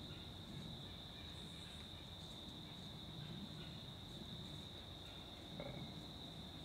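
Insect chorus trilling steadily on one high pitch, over a low, uneven background rumble.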